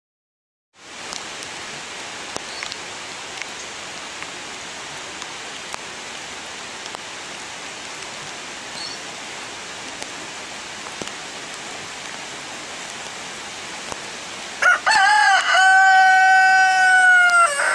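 Steady hiss of heavy rain and flowing run-off water, beginning about a second in. Near the end a rooster crows loudly: a few short broken notes, then one long held note that falls slightly at its close.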